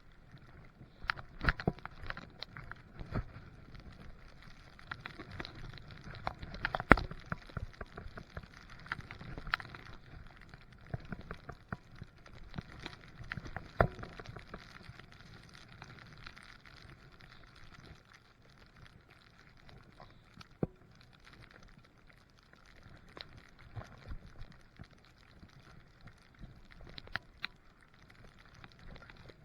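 Skiing on snow: skis sliding and scraping, with scattered irregular knocks and clatter, the sharpest about seven seconds in and again about fourteen.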